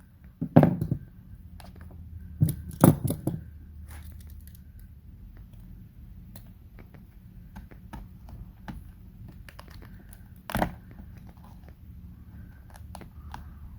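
Vinyl wrap film being cut with a knife and worked by hand around a case hinge: scattered small clicks and crinkling, with a few louder sharp knocks about half a second in, around three seconds in and again about ten seconds in.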